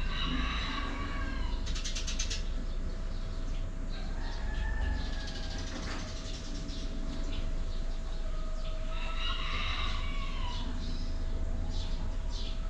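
Cockatiels chirping: a burst of pitched, partly falling calls at the start and another about nine seconds in, with quieter calls between. A brief fast rattle comes about two seconds in, over a steady hum.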